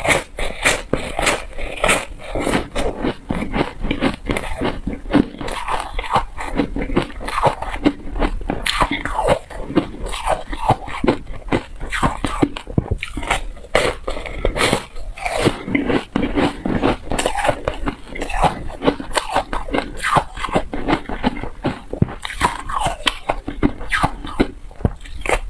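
A person biting and chewing hard frozen ice bars right next to a clip-on microphone: close, continuous crunching with many sharp cracks of breaking ice.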